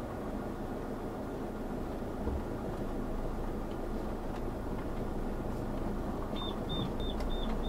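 Motorhome's diesel engine running steadily at low speed, heard from inside the cab. About six seconds in, a run of short high electronic beeps starts, about three a second.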